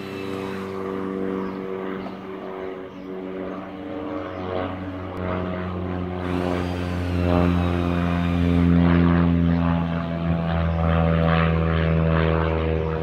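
Cessna light aircraft's piston engine and propeller droning steadily as it passes overhead, growing louder through the first half and staying loudest in the second half.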